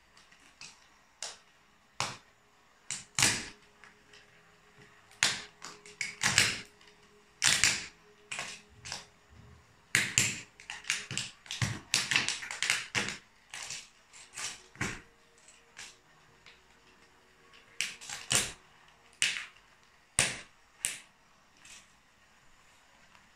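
Plastic toy train cars and track cracking and crunching under stiletto heels: an irregular string of sharp cracks and clicks, thickest about halfway through, where a few longer crunches run together.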